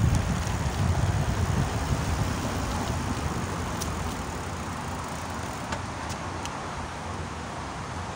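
Wind buffeting the microphone and bicycle tyres rolling over brick paving, a low rushing rumble that gradually gets quieter, with a few faint ticks in the second half.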